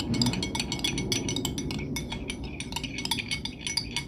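Spoon stirring liquid in a drinking glass, clinking rapidly and continuously against the sides, several clinks a second.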